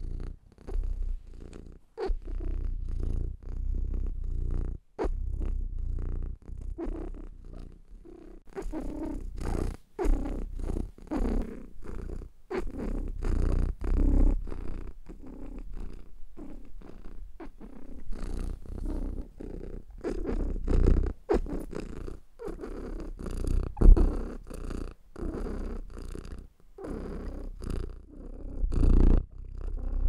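Domestic cat purring steadily and close up, the purr swelling and easing in stretches of a second or two with brief breaks between them.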